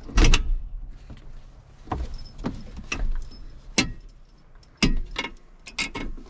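Metal clunks and clicks of a van bench seat's metal feet being set down and pushed into the floor rails: a loud clunk just after the start, then several sharper knocks about four to six seconds in.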